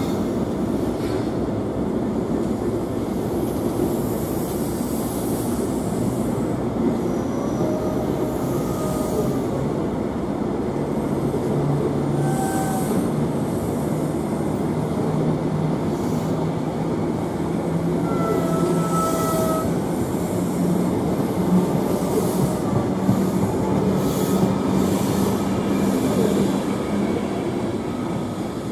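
Greater Anglia intercity train of Mark 3 coaches, propelled by a Class 90 electric locomotive, rolling slowly through the station with a steady rumble and short wheel squeals several times on the curve. About a third of the way in a low hum sets in, rising slightly in pitch and holding until near the end.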